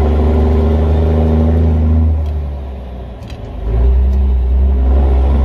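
Cummins KT600 inline-six diesel in a Peterbilt 359 truck running hard with a deep, steady drone. About two seconds in the engine note falls away for a second or so, then comes back on full.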